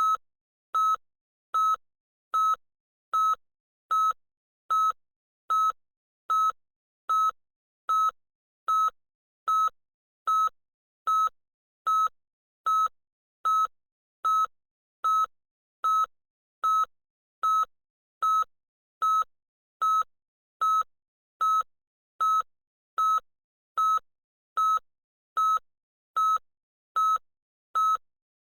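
Loud electronic beeper sounding short, identical high-pitched beeps evenly, about one every 0.8 seconds, with silence between them.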